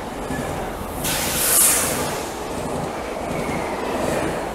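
Double-deck Z22500 RER E electric train running past on the track, a steady rumble of wheels on rail, with a brief high-pitched hiss about a second in.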